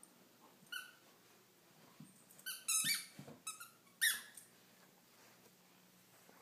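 Rubber squeaky dog toy squeaking as a dog bites down on it: one squeak about a second in, a quick run of squeaks in the middle, and one loud squeak about four seconds in.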